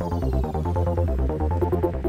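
Instrumental electronic music: a fast, steady pulse of short notes over a held bass line, with no singing.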